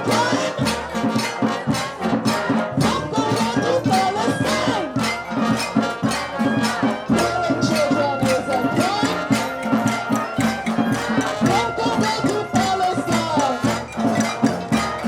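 Music with a fast, steady percussion beat and pitched sounds gliding up and down over it.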